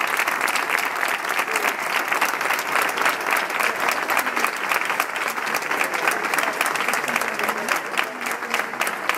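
A crowd applauding: many hands clapping at a steady level, with a few voices mixed in.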